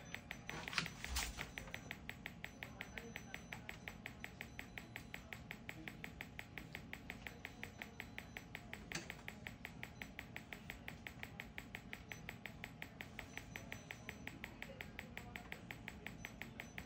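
Magnawave PEMF (pulsed electromagnetic field) therapy machine clicking steadily with each pulse, about five clicks a second. A couple of louder knocks come about a second in and another near nine seconds.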